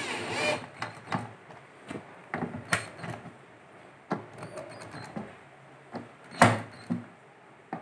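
Cordless 12 V drill/driver whirring briefly as it drives screws that fix woofers to a speaker box's front panel, with scattered clicks and knocks of the screws and handling; the loudest knock comes about six and a half seconds in.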